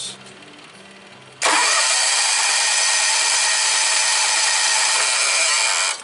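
The Kawasaki FD620D V-twin engine of a 1998 John Deere 6x4 Gator cranking over on its starter at an even speed without catching, a crank-no-start. The cranking begins suddenly about a second and a half in and stops abruptly near the end.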